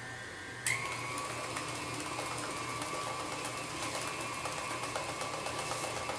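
Electric stand mixer switched on, its motor spinning up and then holding a steady whine. The beater clatters fast in the steel bowl as it mixes thick cream cheese and egg cheesecake batter.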